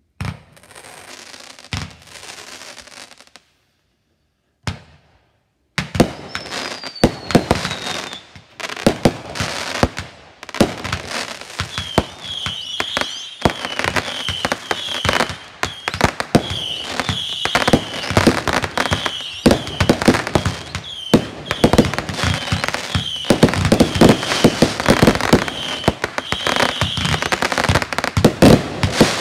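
Aerial fireworks going off: one shot with crackling, a short gap and a lone pop, then from about six seconds in a rapid, continuous barrage of bangs and crackling. A falling whistle sounds early in the barrage, and short high whistles recur through the rest of it.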